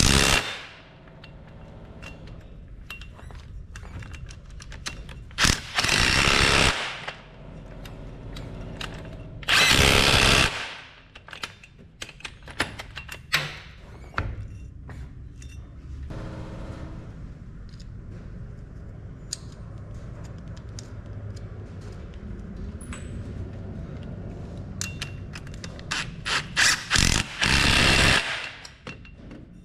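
Impact wrench run in short bursts of about a second, several times, tightening the four nuts that hold the front drive shaft to the transfer case output flange. Scattered light clicks can be heard between the bursts.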